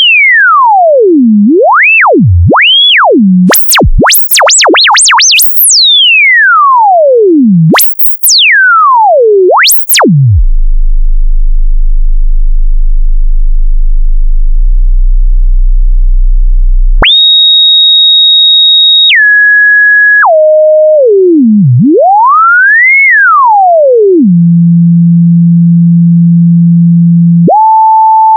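A single pure sine tone from an online tone generator, played as a hearing test across the range of hearing. It slides down from a high whistle to a low pitch, swoops up and down several times to very high pitches, holds a low hum for several seconds, then steps down through held high and middle tones. After another rising and falling swoop it holds a low tone, then jumps to a steady mid-pitched tone near the end.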